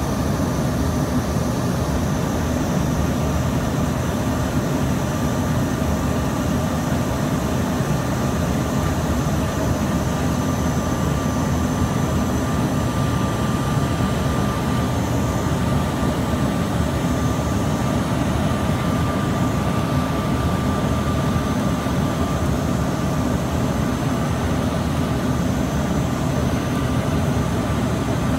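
Cabin noise of an Embraer ERJ-145 regional jet in its climb after takeoff: the constant drone of its Rolls-Royce AE 3007 turbofans and the airflow, with a steady high whine over it.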